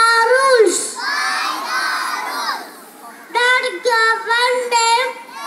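A child's high voice chants a line of a sports oath on a steady, sing-song pitch, and a large group of children repeats it together in a blurred chorus. Then the single voice chants the next line.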